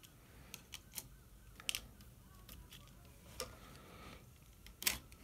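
Scattered light clicks and taps of a small screwdriver and fingers on a pocket calculator's plastic case and circuit board as a screw is worked into place, the sharpest click about five seconds in.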